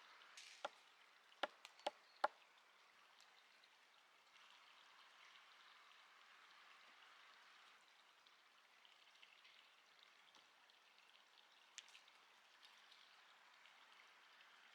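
Quiet outdoor ambience: a faint steady hiss, with four sharp taps in quick succession in the first couple of seconds and one more near the end.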